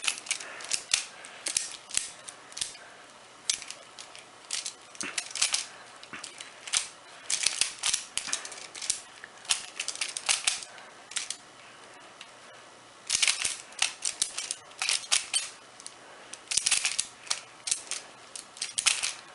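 Plastic Pyraminx puzzle being turned fast by hand in a speedsolve: quick runs of clicking and clacking as its layers and tips rotate, broken by brief pauses between runs of turns.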